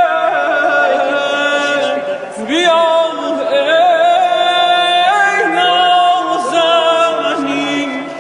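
A man singing unaccompanied in a high voice with quick, wavering vocal ornaments, the notes ringing on in the echo of the mosque's tiled domed hall. The voice dips briefly about two and a half seconds in, then carries on.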